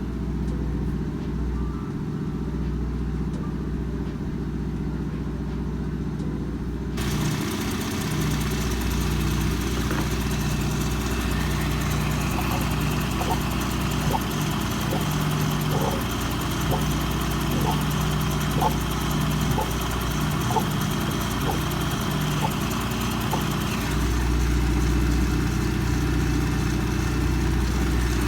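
2019 Dodge Durango engine idling steadily as it warms up after a thermostat replacement, with the cooling system being bled of air. A hiss comes in suddenly about seven seconds in, and light ticks and a faint high steady tone sound through the middle.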